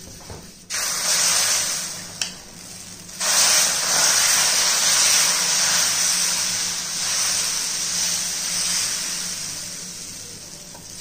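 Dosa batter of jowar (sorghum) flour sizzling on a hot dosa griddle: a hiss begins suddenly under a second in, then a louder sizzle starts about three seconds in as the batter meets the pan, fading slowly as it is spread with a ladle.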